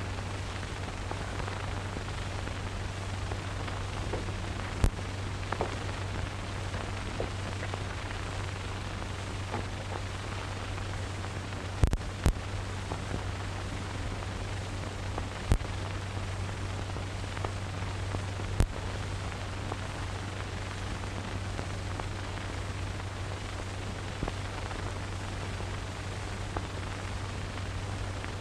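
Steady hiss and low hum of a worn 1930s film soundtrack, broken by a few sharp pops at irregular moments.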